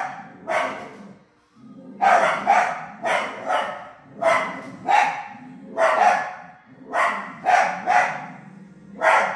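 A dog barking loudly and repeatedly, about a dozen barks at one to two a second, some in quick pairs, with a short lull about a second in.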